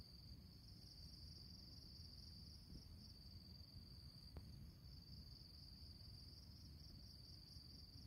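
Faint, steady high-pitched insect trill, slightly pulsing, over a low background rumble.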